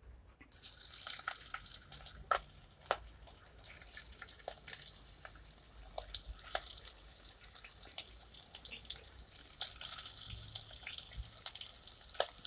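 Raw prawns frying in hot oil in a clay pot: a sizzle starts suddenly about half a second in as the first prawns go in, crackling and spitting throughout, and swells again near the ten-second mark as more are added.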